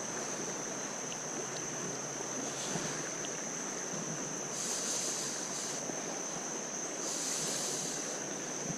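Steady rush of flowing creek water, swelling twice into louder hiss about halfway through and again near the end.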